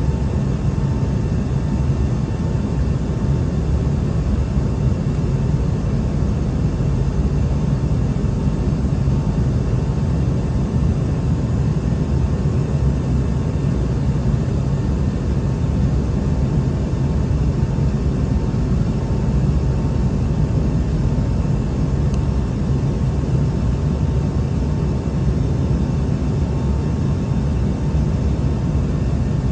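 Steady cabin noise of an Embraer E190-E2 climbing out, heard from a window seat beside its Pratt & Whitney PW1900G geared turbofan: a low engine drone and rushing airflow. A faint steady whine fades out about halfway through.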